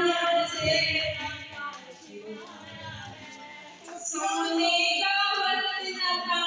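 A group of voices singing a devotional song together as they walk. The singing drops off in the middle and comes back in strongly about four seconds in.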